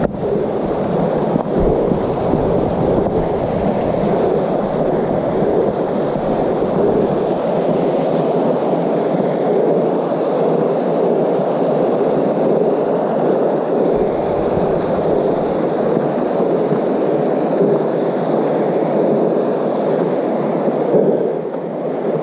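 Steady rushing noise of wind buffeting the camera microphone, with tyres rolling over dirt and rock, as a mountain bike descends a rocky trail.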